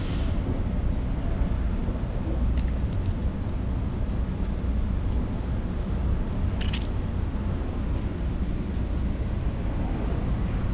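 Steady low rumble of wind buffeting the camera microphone outdoors, with a few faint clicks and a short scratchy sound a little past halfway.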